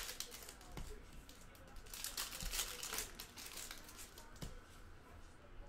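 Basketball card pack wrappers crinkling and tearing as packs are ripped open by hand. The rustling comes in several irregular bursts, the strongest about two seconds in.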